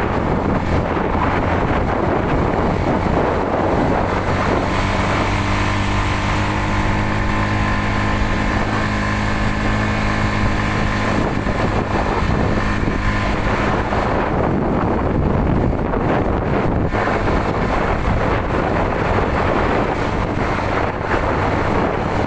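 Motorcycle engine running steadily while riding, with heavy wind rush on the microphone. The engine note holds a clear, even pitch through the middle few seconds.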